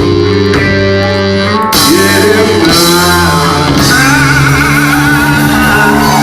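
Rock band playing, with electric guitar to the fore; a long wavering note comes in about four seconds in.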